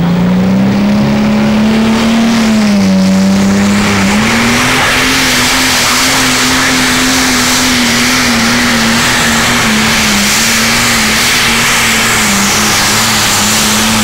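Pro Stock pulling tractor's turbocharged diesel engine at full throttle under load, dragging the weight-transfer sled. The engine note climbs in the first couple of seconds, dips briefly about three seconds in, then holds high and steady with small wavers, while a rushing noise grows beneath it.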